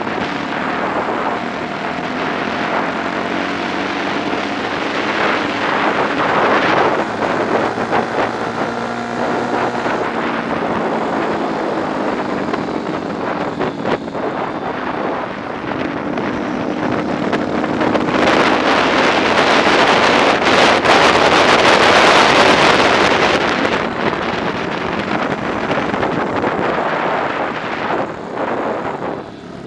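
Onboard sound of a 125 cc four-stroke prototype racing motorcycle at speed, its engine pitch climbing and dropping with the throttle. Heavy wind noise on the microphone, loudest a little past the middle.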